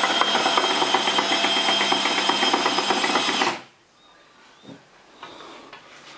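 Freshly rebuilt Suzuki Swift GTI gearbox spinning dry, without oil: a steady whirring with a fast, even ticking through it, the noise whose cause the owner can't tell is normal. It cuts off abruptly about three and a half seconds in.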